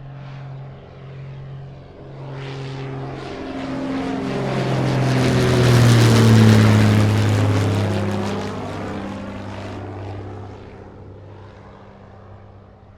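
Propeller airplane flying past: its engine and propeller grow louder to a peak about six seconds in, then fade away, the tone dropping in pitch as it passes.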